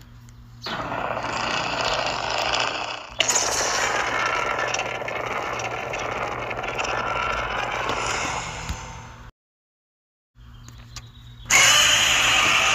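Godzilla-style monster roar sound effects: one long roar that steps louder about three seconds in and cuts off suddenly, then after a second of silence another roar begins, jumping louder near the end.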